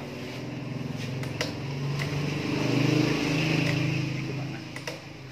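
Yamaha Mio Soul i 115 scooter's small single-cylinder engine running at idle. It grows louder toward the middle and eases off near the end, with a few light clicks.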